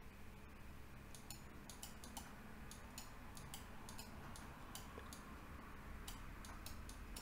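Faint, irregular clicking of a computer mouse, several light clicks a second, over a low steady hum.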